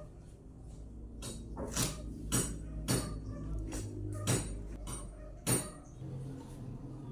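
Construction work: irregular sharp metallic clanks and knocks, about six in several seconds, over a steady low rumble.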